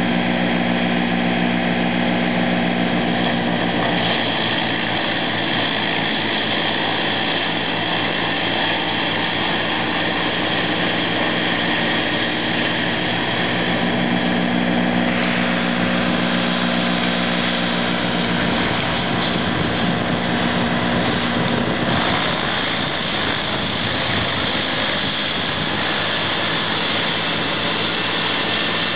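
Valtra tractor running a TP wood chipper at working speed while a crane feeds whole pine trees into it: a loud, steady machine drone. Its low pitched hum fades about four seconds in, comes back about halfway through, and weakens again near the end.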